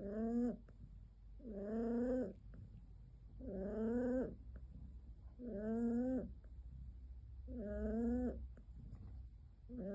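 A cat yowling: long drawn-out calls of under a second each, repeated evenly about every two seconds, five or six times.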